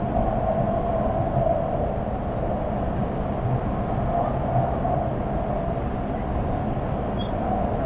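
Beijing subway train running between stations, heard from inside the carriage: a steady rumble of wheels on rails with a wavering mid-pitched drone.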